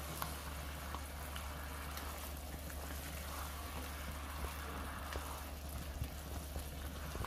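A pot of curry chicken simmering while a plastic spatula stirs the thickening gravy, with faint bubbling and small scrapes over a steady low hum.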